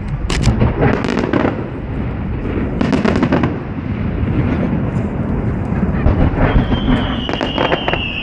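Aerial fireworks bursting in quick succession over a continuous low rumble, with clusters of crackling reports at the start, about three seconds in, and again near the end. A single high tone falls slightly in pitch over the last two seconds.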